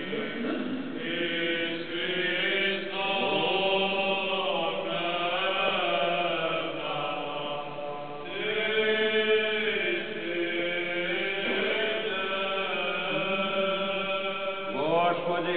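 Liturgical chanting by voices, long held notes that slide slowly from one pitch to the next.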